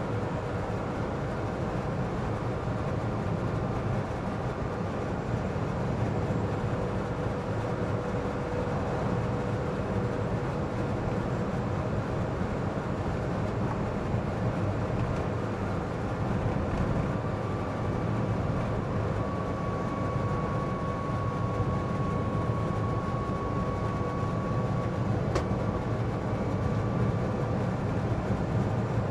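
Steady cabin noise inside a Citroen Ami small electric car on the move on a wet road: constant road and tyre rumble with hiss and a faint steady whine. There is a single sharp click near the end.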